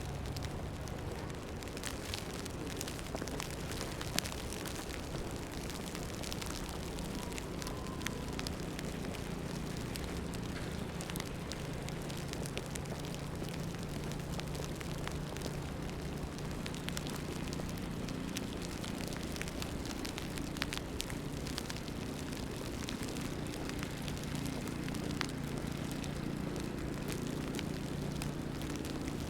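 Snowy city street ambience: a steady crackling hiss with scattered small ticks and pops, over a low traffic drone.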